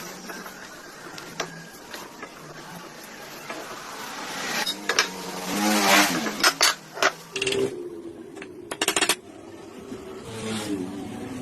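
Objects being handled: scattered clicks, a scraping swell that builds about four to six seconds in, then several sharp knocks and a quick rattle of clicks near the end.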